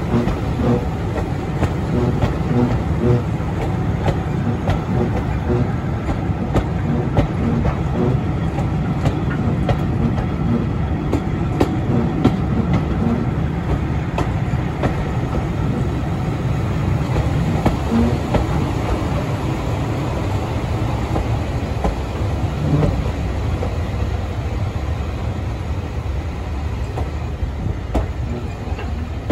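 Passenger train running along the line behind a diesel locomotive: a steady rumble of wheels on rail with a regular clickety-clack beat, a little quieter toward the end.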